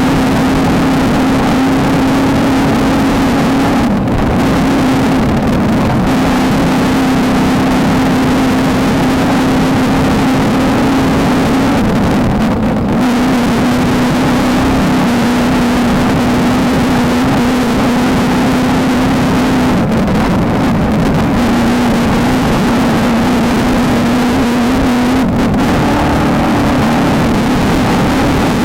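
Off-road race car engine running hard at a steady high pitch under heavy road and wind noise, with brief dips about four times where the engine note shifts slightly.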